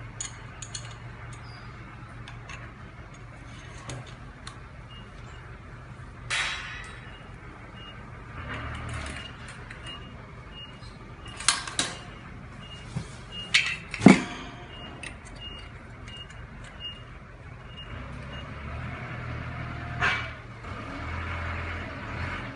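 Chrome wire swivel-basket parts knocking and clinking against the steel centre pole as they are fitted and turned: a handful of sharp metallic knocks, the loudest just past the middle, over a steady low hum.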